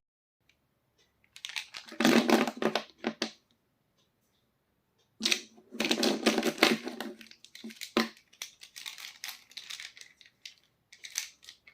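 Slime being squished and handled by hand: two bursts of crackling, squishing noise, about one and a half and five seconds in, followed by scattered small clicks and crackles.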